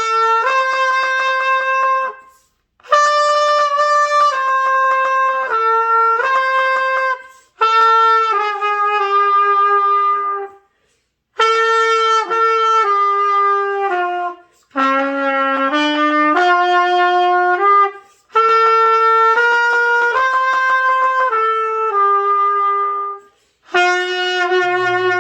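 Trumpet playing a slow hymn melody of held notes, in phrases of a few seconds broken by short breath pauses.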